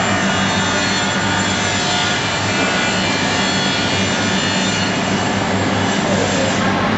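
Steady machinery noise on a woodworking factory floor: a continuous hum under a dense hiss, with the higher hiss easing slightly near the end.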